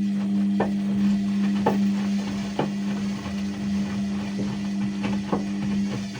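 Ariston washing machine running mid-cycle on a synthetics programme: a steady motor hum with a few light knocks from inside the machine.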